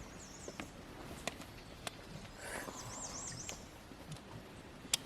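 Faint outdoor quiet with a high, wavering bird call twice, once near the start and once midway, and a few scattered light clicks.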